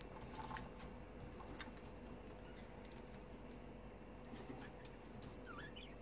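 Budgerigars in a cage making faint sounds: scattered light clicks and taps, with a few short chirps near the end.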